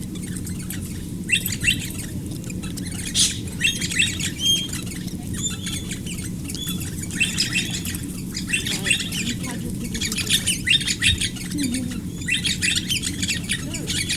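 A flock of wild birds chattering and squawking in quick, dense clusters of high chirps, over a steady low background hum.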